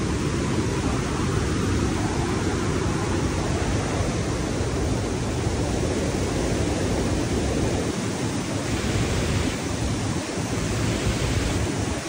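Waterfall rushing in a steady, loud roar, in full flow after rain.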